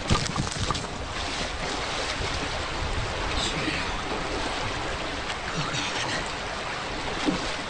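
A creek's flowing water rushing steadily, with splashing right at the start as a man goes into the water.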